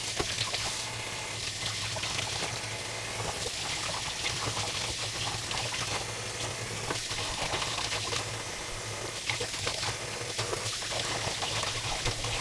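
Tap water running while bluegills are rinsed and cleaned under it, with small splashes and knocks from handling the fish.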